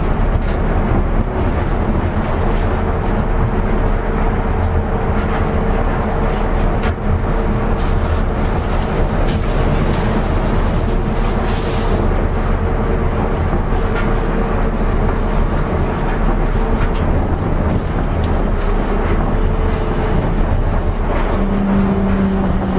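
Osaka Metro 200 series New Tram, a rubber-tyred automated guideway train, running between stations at steady speed: a dense rumble and hiss of the ride with a steady motor whine held through most of it. The hiss brightens for a few seconds around the middle, and a lower steady tone comes in near the end.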